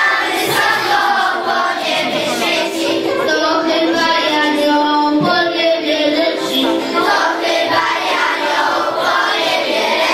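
A group of young children singing a song together in unison, held notes moving step by step like a choir.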